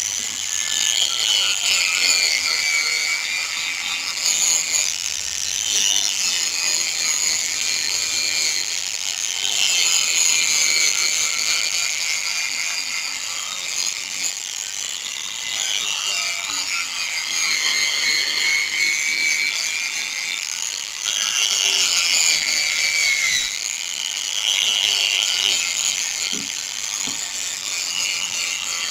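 A small power tool spinning a sanding pad, wet-sanding a plastic motorcycle headlight lens with fine sandpaper to take off yellowing and scratches. It is one stage of several grits: a high whine that dips in pitch and recovers several times, over a gritty scrubbing noise.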